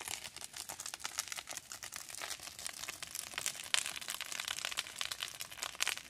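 Dry grass and brush burning, a dense irregular crackle of many small snaps and pops.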